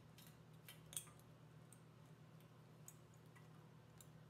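Near silence: a few faint, light clicks and ticks of 18-gauge wire being handled and wrapped around an agate slice by hand, the most distinct about a second in, over a faint steady low hum.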